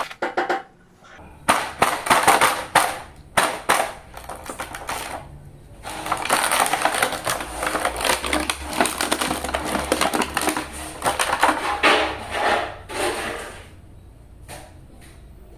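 Plastic toy packaging and an action figure being handled: scattered clicks and taps, then a long stretch of dense crinkling and rustling from about six seconds in that dies away near the end.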